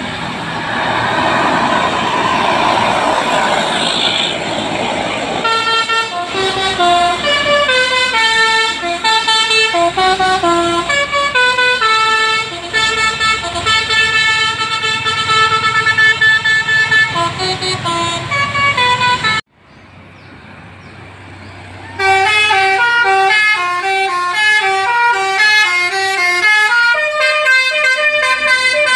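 A bus's Basuri 'telolet' multi-note horn playing quick melodic tunes of stepped notes. It opens with a few seconds of loud rushing noise. A first tune runs for about fourteen seconds and breaks off suddenly, and a second tune starts a few seconds later.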